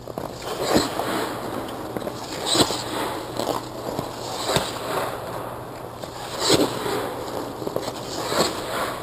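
Hockey goaltender's skate blades carving and scraping the ice in repeated pushes across the crease, a sharp scrape about every two seconds, each with a dull knock of the leg pads.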